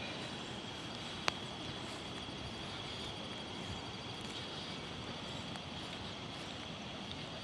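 Quiet outdoor ambience: a steady hiss with a faint, steady high-pitched tone running through it, and one sharp click a little over a second in.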